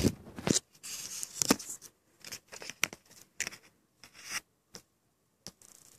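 Scattered clicks and short scratchy rubbing sounds, irregular and fairly quiet, thinning out in the second half.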